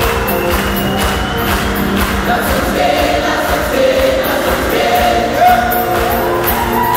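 A live rock band and a large gospel choir performing a song together: many voices singing sustained, gliding lines over electric guitars and drums keeping a steady beat, in a reverberant hall.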